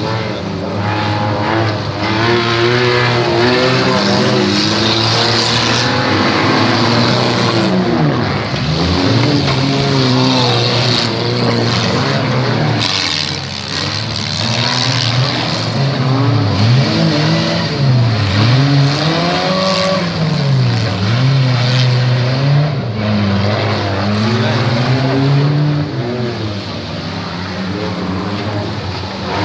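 Engines of demolition derby cars revving up and dropping back again and again, several engines at once, loud throughout.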